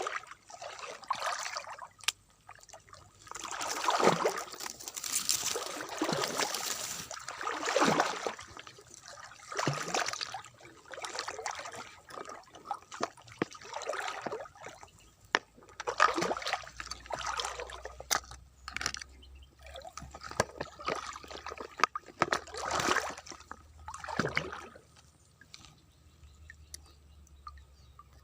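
Water sloshing and splashing in a string of irregular surges with short quieter gaps, dying down near the end.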